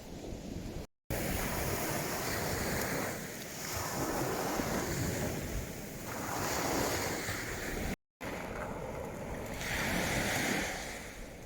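Waves breaking and washing on the beach, with wind on the microphone; the wash swells and fades every few seconds. The sound cuts out abruptly twice, about one second in and about eight seconds in.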